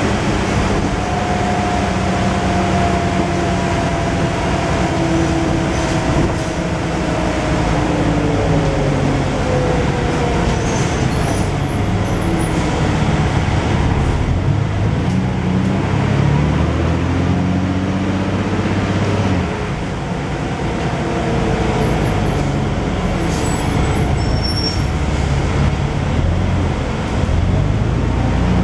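Dennis Dragon double-deck bus driving, heard from inside the lower-deck saloon: a steady engine and road drone whose low engine note steps up and down several times. A fainter whine falls slowly in pitch over the first several seconds.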